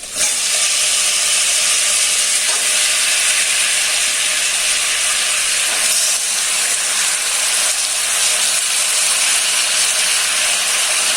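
Raw, washed country chicken pieces going into hot groundnut oil with the sautéing onions: a loud, steady frying sizzle that starts suddenly and holds.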